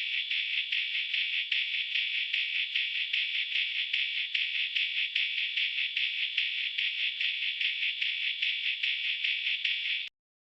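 Music leaking from headphones: thin and tinny, all treble and no bass, with a quick steady pulse. It cuts off abruptly near the end.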